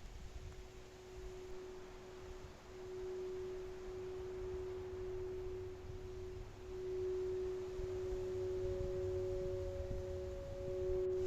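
Two steady pure tones a fifth apart. The lower one holds with a few short breaks, and a higher one joins about eight seconds in, over a low rumble.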